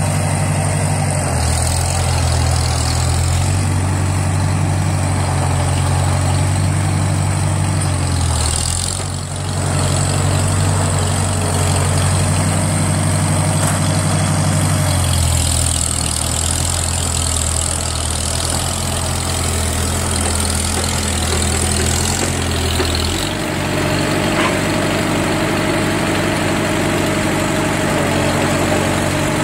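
1947 Farmall H tractor's four-cylinder engine running while the front-end loader works. The engine note shifts up and down several times as load and throttle change, with a brief dip about nine seconds in.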